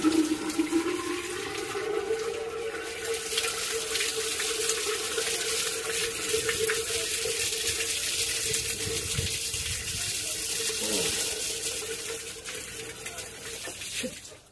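Water poured from a plastic bucket into the top of a hand pump to prime it. A steady splashing gush with a hollow tone that rises briefly at the start and then holds steady, stopping abruptly near the end.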